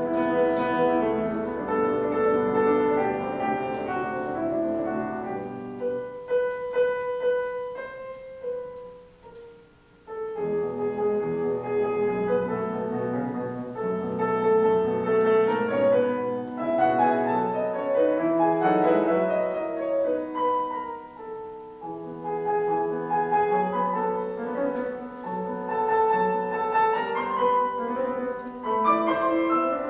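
Steinway concert grand piano played solo, classical music. About nine seconds in the sound dies away to a single fading note, then the playing comes back in suddenly and carries on densely.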